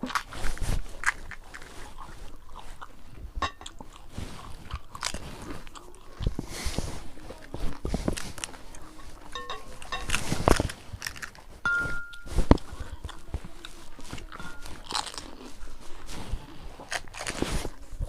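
Crisp phuchka (pani puri) shells cracking as they are bitten, with chewing in between. The cracks come irregularly, several a second at times.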